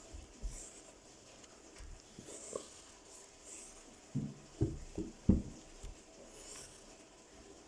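Pen strokes scratching on paper, drawing patterns. About four seconds in come four soft knocks in quick succession, the last the loudest.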